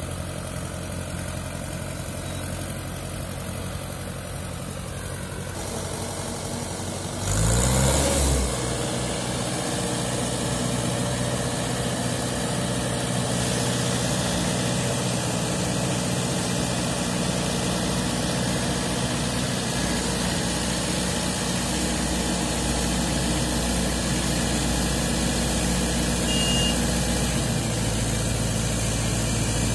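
Mahindra 595 DI tractor's diesel engine running under load as it hauls a loaded trolley through mud. About a quarter of the way in it revs up sharply and briefly, then runs on steadily.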